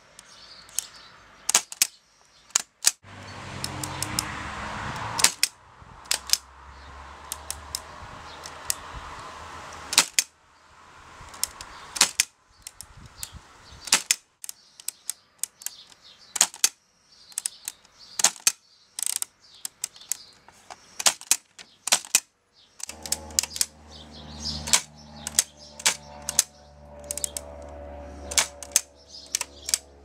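Apex Standard index typewriter being typed on. Its type dial is turned to each letter and then struck, giving sharp clicks at an irregular pace.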